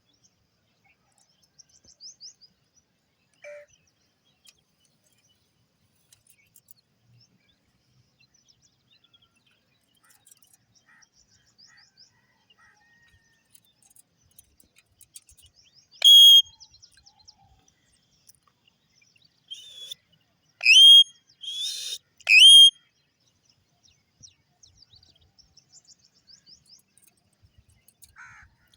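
Indian ringneck parrot calling: scattered faint chirps and twitters, then one loud, sharp high call about halfway through and three more in quick succession a few seconds later.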